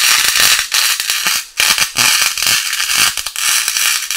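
MIG welder arc crackling and sputtering as a bead is laid on car body steel. It comes in several runs broken by brief pauses, where the trigger is let off between tacks.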